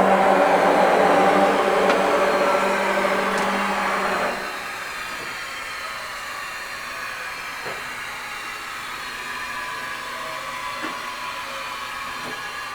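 1998 Haas VF-5/50 CNC vertical machining center running a test cycle: a steady motor whine from the spindle and axis drives, which drops sharply in level about four seconds in and carries on as a quieter steady hum.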